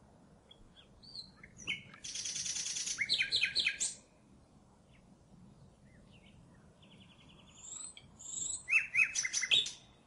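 Common nightingale singing two song phrases, one about two seconds in and one about seven seconds in. Each phrase is a fast rattling trill of rapidly repeated notes, followed by a few loud, sharp, high notes.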